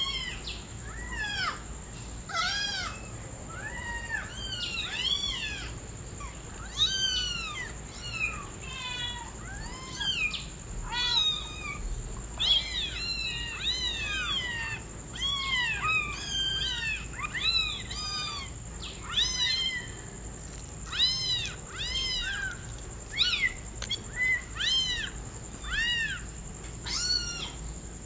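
Kittens meowing over and over: high, thin calls that rise and fall, coming one or two a second and often overlapping.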